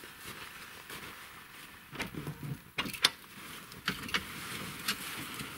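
A series of sharp knocks and clatters as the towed plastic sled is handled, the loudest about three seconds in, over a steady hiss.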